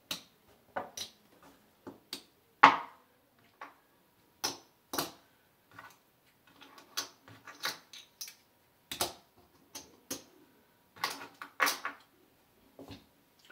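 Casino chips clicking as they are set down on the numbers of a felt craps layout and handled in the chip rack: an irregular run of short, sharp clicks.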